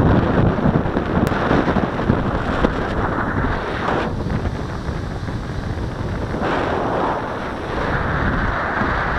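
Strong sea breeze buffeting the microphone: a loud, rushing wind noise with no tones, easing a little around the middle and then gusting up again.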